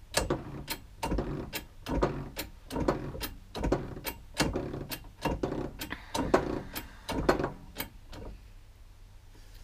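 Hand-pumped hydraulic shop press being worked, a steady rhythmic clacking of about three strokes a second as it presses a tapered roller bearing down onto a differential carrier. The clacking stops about eight seconds in.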